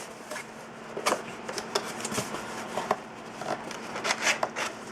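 Cardboard box and packaging being handled: irregular light clicks, taps and rustles, a few a second.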